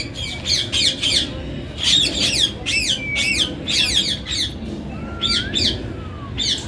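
Birds calling in quick runs of sharp, high squawking chirps, several a second, pausing briefly near the middle and thinning out toward the end.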